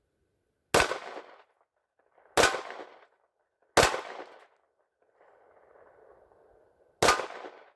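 Four pistol shots, unevenly spaced: three in about three seconds, then a pause of about three seconds before the fourth. Each shot rings off briefly in an echoing tail.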